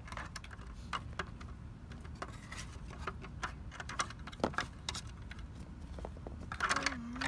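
Light, scattered clicks and taps of small plastic Littlest Pet Shop figurines being handled and knocked against a plastic toy house.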